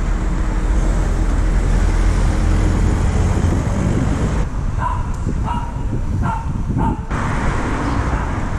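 Wind rumble and traffic noise on an action camera's microphone while riding a unicycle through town. Midway the rumble drops suddenly and a dog barks four times, about half a second apart, before the noise returns.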